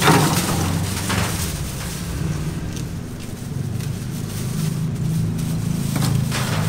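Steady low mechanical hum, with louder rushing swells at the start, about a second in, and again near the end.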